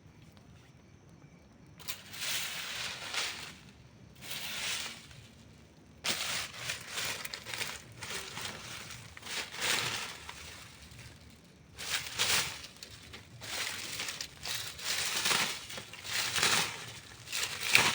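Campfire wood burning with irregular crackles and snaps, in clusters that come and go. It is faint for the first couple of seconds, then grows busier.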